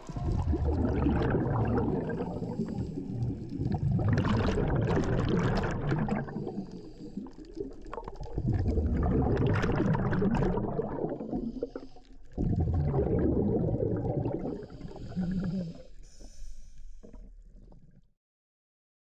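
Scuba breathing heard underwater: exhaled bubbles from a regulator gurgling in four long bursts a few seconds apart, then a weaker one, fading out near the end.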